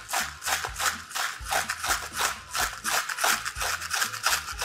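Hand salt grinder being twisted over a bowl: a rapid gritty crunching of about four grinding strokes a second.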